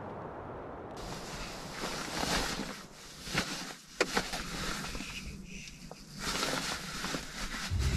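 Rustling of a winter jacket and neck gaiter as they are pulled up and adjusted inside a car cabin, with a few sharp clicks and knocks as sunglasses are put on.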